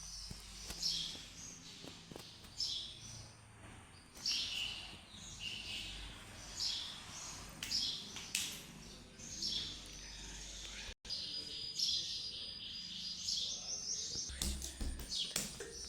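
Small birds chirping: short, high chirps repeating in quick clusters, with a brief cut-out about eleven seconds in.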